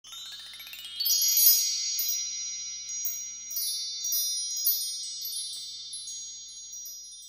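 Shimmering chime sound effect for an intro: high tones sweep upward over the first second, then bright high chime notes ring on with scattered sparkling strikes and slowly fade.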